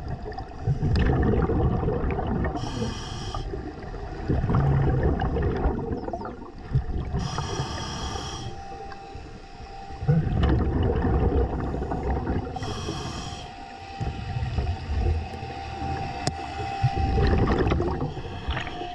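Scuba diver breathing through a regulator underwater. Each inhale is a hiss, three times about five seconds apart, and the exhaled bubbles rumble and gurgle between them.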